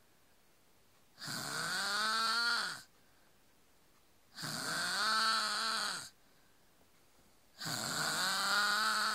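A man snoring in his sleep: three long snores about three seconds apart, each rising and then falling in pitch, with near quiet between them.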